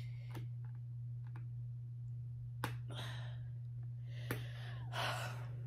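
Fingernails picking and scraping at a warning sticker on the plastic shell of a Shutt Vengeance A11 football helmet: a couple of sharp clicks and a few short scratchy rustles, over a steady low hum.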